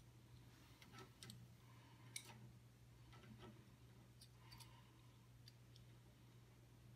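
Near silence with faint, scattered clicks and taps of metal brake lines and a small bracket being handled by hand at the master cylinder, over a steady low hum.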